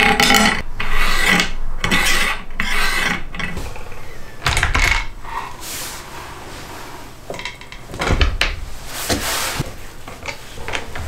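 Handling noise from a wooden sliding jig fitted with an angle grinder: a series of rasping, rubbing strokes as the carriage slides on its steel rods and the mount is worked on, with a heavier knock about four and a half seconds in and more scraping near the end.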